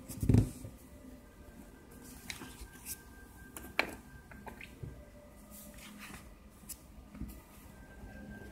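Paper catalogue pages being handled and turned, giving scattered rustles and sharp clicks, with a dull thump about a third of a second in.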